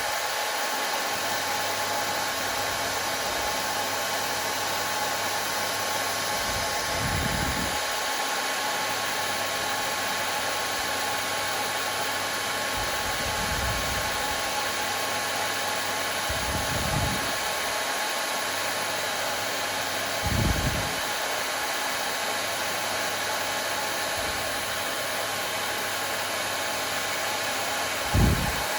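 Hair dryer running steadily, a constant whooshing hiss with a faint hum of fixed pitch. A few brief low bumps come through now and then.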